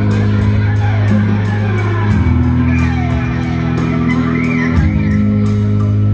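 Live rock band playing an instrumental passage: electric guitar over steady bass and drums, with evenly spaced cymbal strokes.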